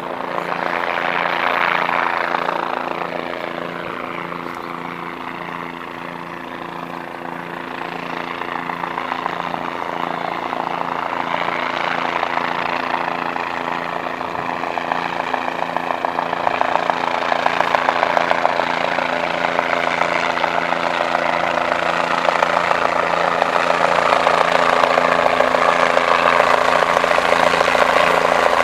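Medevac helicopter flying in, its rotor chop and turbine engine growing steadily louder as it approaches. A whine sweeps downward in pitch over the first few seconds.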